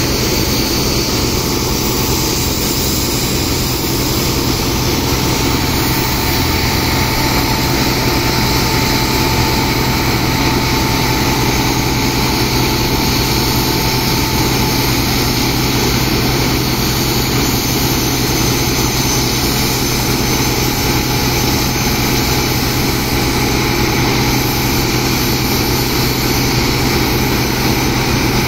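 Sand-pumping engine running steadily, mixed with the hiss of high-pressure water jets spraying from hoses onto sand.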